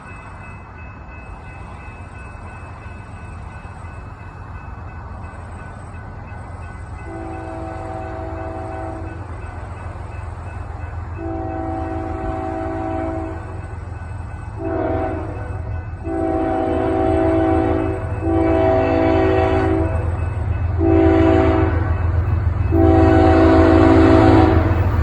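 Approaching train sounding its multi-chime air horn in a series of seven blasts, long and short, with the chord clearly audible. The horn and a low engine and rail rumble underneath grow steadily louder as the train nears.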